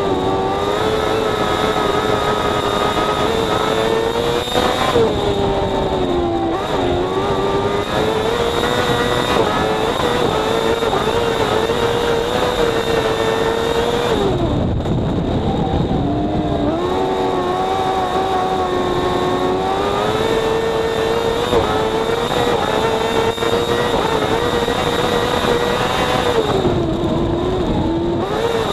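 Kartcross buggy's motorcycle engine racing at high revs, heard from the cockpit: the note holds mostly level on the straights and dips several times as the driver lifts for corners, most deeply about halfway through, before climbing again. Wind and dirt-track noise run underneath.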